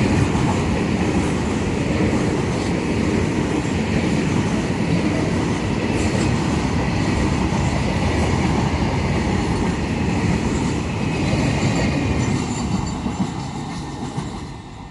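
A train passing close by at speed, its wheels clattering steadily over the rails, the sound dying away over the last few seconds as it moves off.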